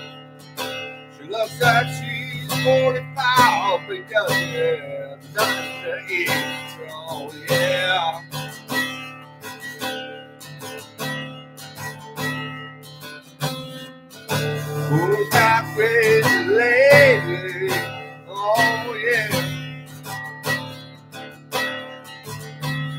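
Acoustic guitar strummed in a steady rhythm while a man sings along in phrases with a wavering voice, pausing between lines.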